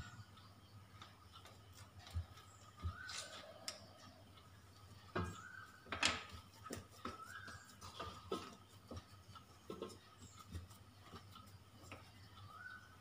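Faint, scattered knocks and ticks from a knife cutting through a log of paratha dough and tapping the stone countertop beneath it, at uneven intervals; the loudest come about five and six seconds in.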